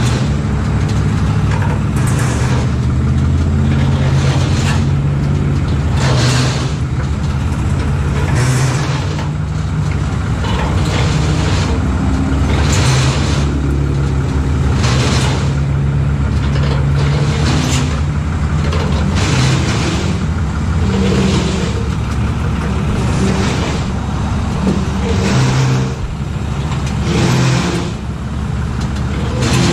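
Truck engines running steadily while a stuck, loaded car hauler rig is being winched out, with short rushes of noise every second or two.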